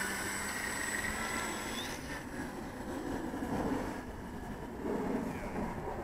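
Electric motor and propeller of an FMS Super EZ radio-controlled plane whining at a steady pitch, fading away about two seconds in. Wind buffeting the microphone with an uneven low rumble follows.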